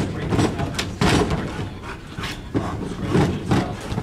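A run of irregular knocks and thumps, a few each second.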